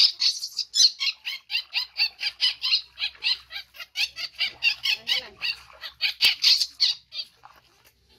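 Baby monkey screaming in short, high, rapidly repeated squeals, about three to four a second, while it is being washed in water; the calls break off for a moment near the end.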